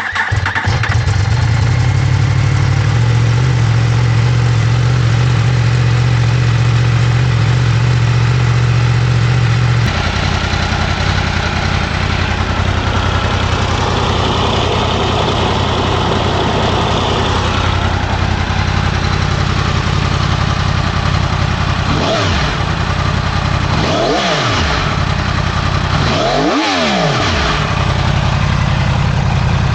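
2017 Yamaha R1's crossplane inline-four running on its stock exhaust: a steady idle whose note drops about ten seconds in, then three quick throttle blips near the end, each rising and falling in pitch, the last the longest.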